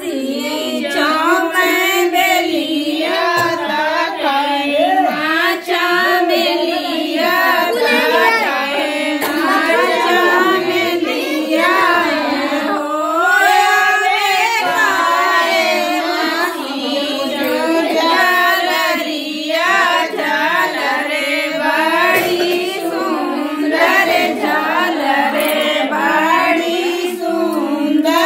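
Several women singing a song together in Hindi-style folk fashion, voices continuous and wavering in pitch with no break.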